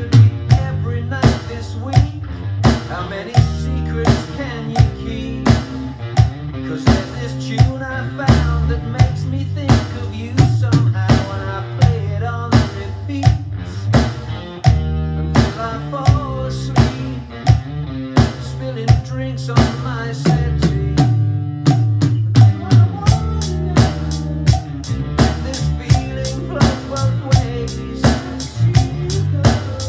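Electronic drum kit played along to a slow rock backing track with guitar and bass: a steady beat of kick, snare and cymbal hits. The hits come thicker over the last several seconds.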